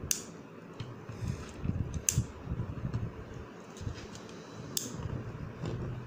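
SN-28B ratchet crimping tool being squeezed shut on an FS-type crimp connector. There are three sharp clicks a couple of seconds apart, with low rubbing and handling noise between them.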